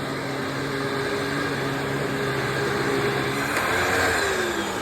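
Maytag motor of a Hoover WindTunnel Bagless Twin Chamber upright vacuum running steadily with a pitched whine. About three and a half seconds in it clicks off and the motor winds down, its pitch falling.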